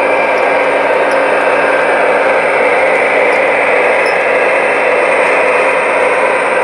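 Several three-rail O gauge model trains running at once: a steady, loud whir and rumble of locomotive motors and wheels on the track.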